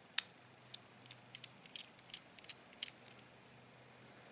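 Pentalobe screwdriver working a tiny screw out beside the iPhone 4S dock connector: a dozen or so light, irregular metallic clicks and ticks over about three seconds.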